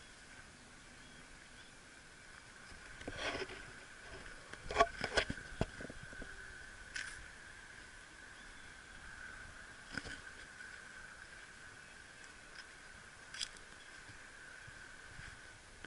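Faint outdoor ambience with a steady high-pitched drone. A cluster of sharp knocks and rattles comes about three to five seconds in, then a few single clicks later on.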